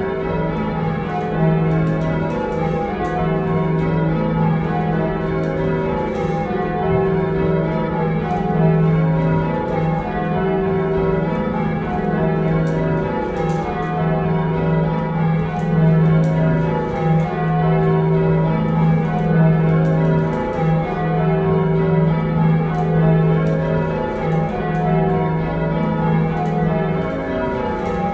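Heavy ring of six church bells cast by John Taylor & Co in 1925, tenor in E-flat, rung full circle by hand, the bells striking one after another in a steady, unbroken sequence. Heard from the ringing chamber below the bells.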